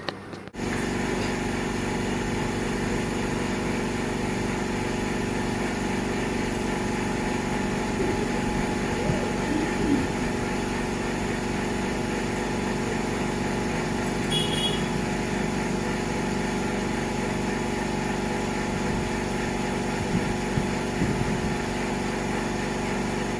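Steady electric motor hum from dental equipment running during a teeth cleaning, starting abruptly about half a second in and holding even throughout, with a few faint vocal sounds.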